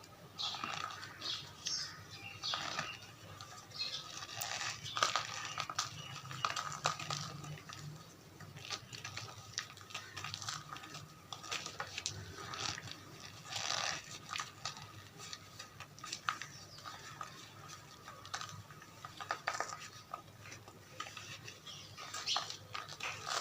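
Gym chalk mixed with cornstarch being squeezed and crumbled, giving irregular squeaky crunches in quick, uneven runs.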